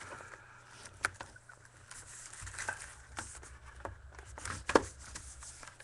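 Hands handling and working open a sealed box of trading cards: scattered light taps, scrapes and rustles of cardboard and wrapping, with one sharper knock near the end.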